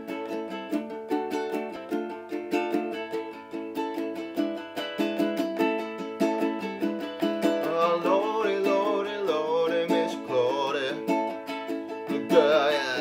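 Ukulele strummed in a steady, even rhythm of chords. A man's voice comes in singing over it about eight seconds in.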